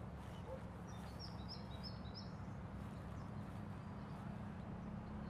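Outdoor ambience: a steady low hum with a bird giving a quick run of about five short, high chirps about a second in.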